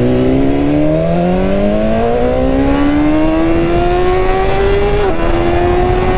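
2016 BMW S1000RR's inline-four engine accelerating, its pitch climbing steadily through the gears and dropping sharply at an upshift about five seconds in and again at the very end.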